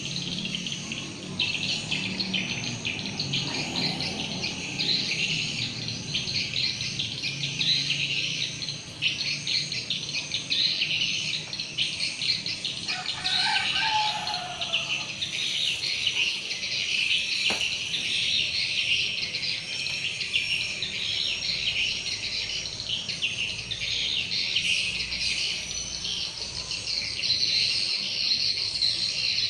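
Swiftlets chirping: a dense, continuous high-pitched twittering of many rapid calls.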